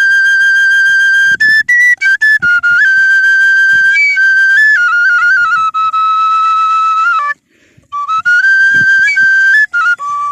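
A flute playing a slow, high melody of long held notes stepping up and down in pitch, with a short breath-like pause about seven seconds in.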